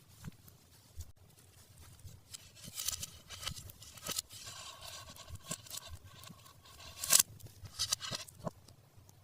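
Hands unboxing toys: plastic packaging crinkling and scraping, with scattered clicks and a sharp loud rustle near the end. In the middle there is a few-second stretch of steady squeaky tones.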